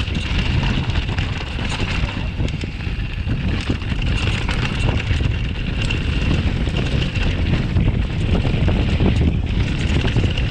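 Wind buffeting the microphone: a loud, steady rumbling noise with no breaks.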